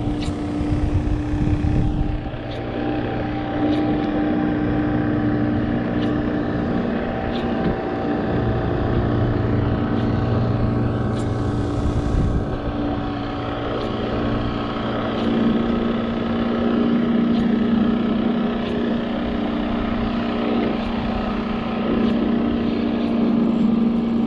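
Motorboat engine running with a steady hum; about two-thirds of the way through its pitch shifts lower and holds there. Faint ticks sound every second or so over it.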